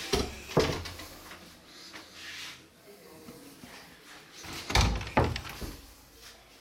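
Heavy thuds from a wooden interior door being handled: two thuds about half a second apart at the start, and two more about five seconds in.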